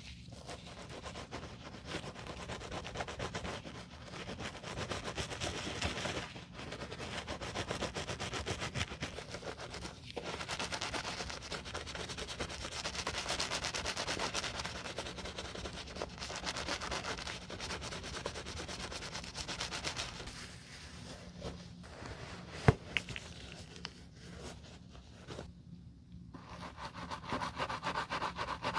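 Bristle brush scrubbing lathered cleaner over a moldy leather loafer: a continuous rough rubbing in spells of quick strokes with short pauses. One sharp click stands out about two-thirds of the way through.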